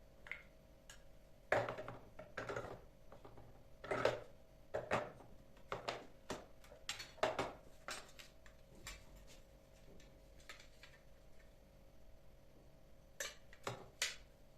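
Kitchenware being handled: a run of irregular clinks and knocks as items are set down and moved about, the loudest about a second and a half in and around four seconds, with a faint steady hum underneath.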